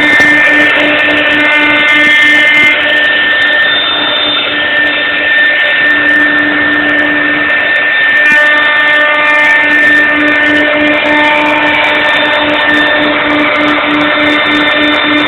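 CNC router running as its spindle cuts wood, a steady high whine over a noisy cutting sound, with a low hum that pulses in an even rhythm.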